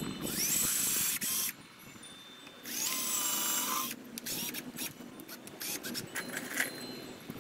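Cordless drill boring holes with a twist bit through a wooden slat: two runs of the motor about a second long each, its whine rising in pitch as it speeds up. Light clicks and knocks of handling the drill and wood follow in the second half.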